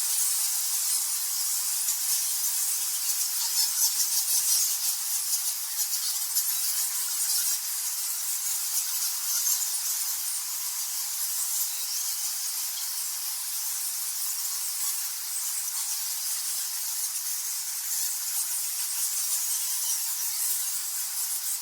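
Many bats squeaking and chittering together in a dense, steady, high-pitched chatter.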